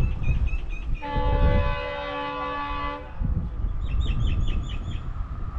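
Distant diesel locomotive air horn (WDP 4D) sounding one long chord-like blast of about two seconds, starting about a second in, as the train approaches. Low rumble throughout, with a bird's short repeated chirps near the end.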